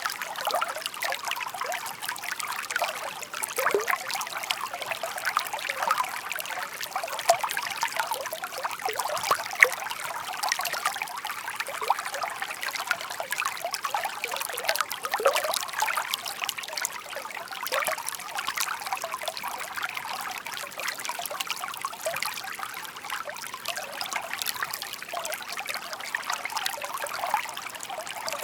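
Shallow park stream babbling and trickling steadily, a continuous patter of small gurgles and splashes.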